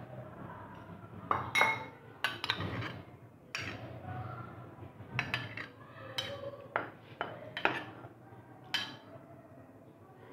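Metal spoon clinking and scraping against a ceramic plate as soft jelly cubes are spooned off it: a string of irregular sharp clinks, sparser near the end.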